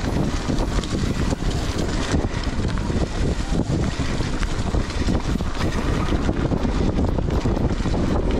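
Wind buffeting the microphone over the rumble of a mountain bike's tyres rolling on a dirt trail, with many small rattles and knocks from the ride.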